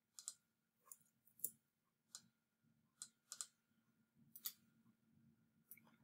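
Faint, scattered clicks of a computer mouse, about nine or ten at irregular intervals, over a faint steady hum.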